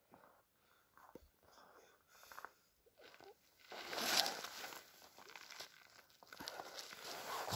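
Soft rustling and crunching of snow and winter clothing as a large asp is handled and laid down on snow-covered ice, with a louder stretch of rustle and crunch starting about four seconds in.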